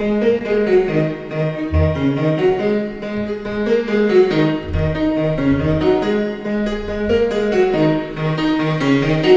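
Instrumental beat track with piano and bowed-string sounds over repeating low bass notes, played through an Altec Lansing Mini LifeJacket 2 Bluetooth speaker.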